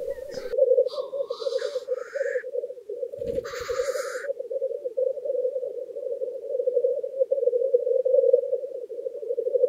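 Male black grouse at a lek, their low bubbling rookooing song running on without a break. Two hissing calls cut through it, one about a second in and one about three seconds in.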